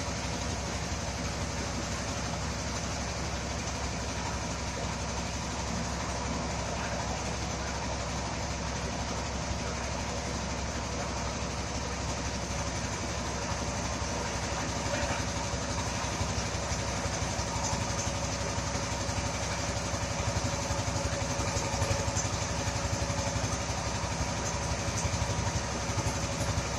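Engine-driven power rice thresher running steadily while threshing, its engine and spinning drum giving a continuous, even mechanical hum.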